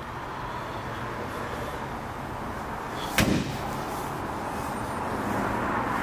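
BMW 3 Series engine idling steadily, with one sharp thump a little over three seconds in.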